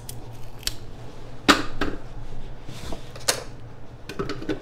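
A potato being cut into chunks with a knife and the pieces dropped into a plastic food processor bowl: a handful of short sharp knocks and clicks, the loudest about a second and a half in.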